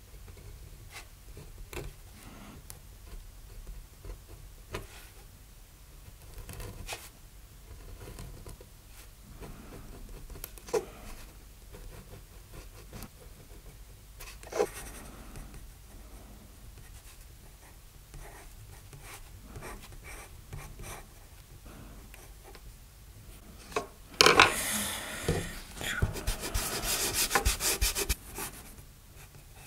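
Steel G-pen nib scratching faintly over drawing paper as ink lines are drawn, with occasional small clicks. Near the end, a few seconds of much louder, fast rubbing against the paper from a kneaded eraser being worked over it.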